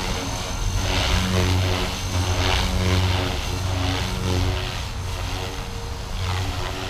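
Blade 330S electric RC helicopter flying hard maneuvers: a steady motor and rotor hum with a thin high whine, swelling into blade whooshes about every second and a half as the stick is slammed.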